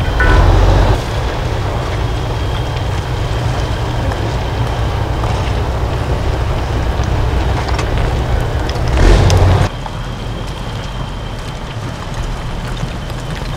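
Off-road trial truck's engine working hard under load, with two louder surges, one near the start and one about nine seconds in, after which it runs quieter.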